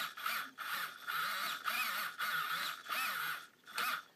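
Plastic front steering knuckles and linkage of a Tamiya RC car chassis being swung back and forth by hand, giving a rhythmic squeaky scraping about twice a second. The steering moves freely, without binding.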